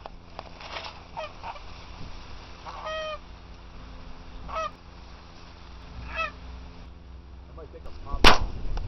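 Geese honking in about six separate calls, then a single loud shotgun blast about a second before the end.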